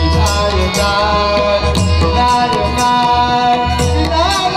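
Loud Indian folk music with drum strokes and a held, wavering melody line, over a large outdoor sound system, accompanying a dance troupe.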